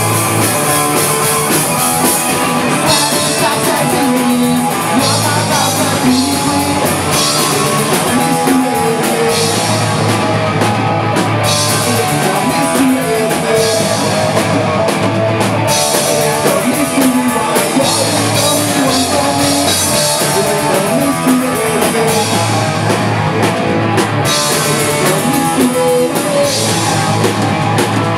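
A live pop-punk band playing a song on electric guitar, bass guitar and drum kit, loud and steady.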